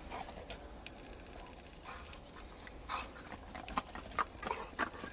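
Dogs playing in snow: faint, scattered scuffs and patters of paws, with a sharper knock about half a second in and a cluster of short sounds in the last two seconds.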